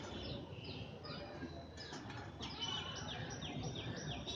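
High, short chirps falling in pitch: a few scattered ones, then from about halfway in a fast, even series of about three a second, over a steady low background hum.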